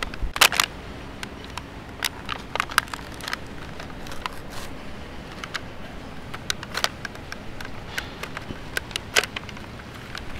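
Crinkly plastic blister pack and paper backing of a PEZ dispenser being handled and torn open by hand: scattered crackles and sharp clicks, the loudest just after the start and again near the end.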